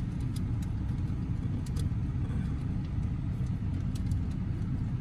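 Low steady rumble of a car heard from inside the cabin, with a few faint clicks.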